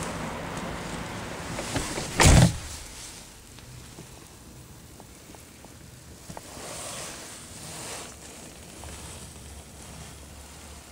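Car door of a 1988 Cadillac Brougham pulled shut with a single heavy thunk about two seconds in. The outside wind noise drops away after it, leaving a quiet cabin with a few faint clicks.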